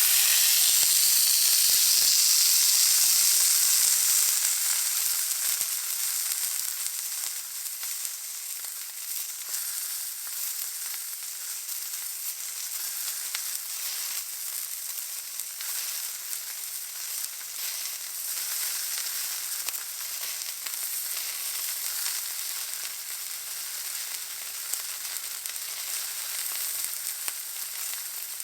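Steak searing in a hot pan: loud sizzling at first that eases after about four seconds into a steadier, somewhat quieter sizzle, with fine crackling and spitting throughout.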